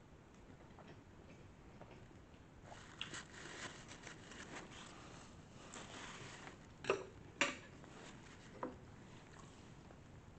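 A paper napkin rustling as it is pressed and wiped across the face, with small clicks, then two short sharp noises about half a second apart and a third a little later.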